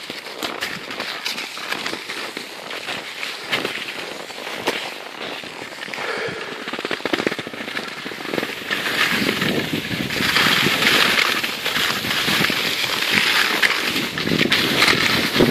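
Skis and boots crunching and scraping over packed snow, a dense crackling that grows louder about nine seconds in.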